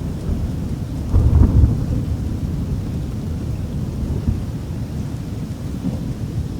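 Deep, noisy low rumble like rolling thunder, swelling to its loudest about a second in and then rolling on more evenly: a designed horror sound effect.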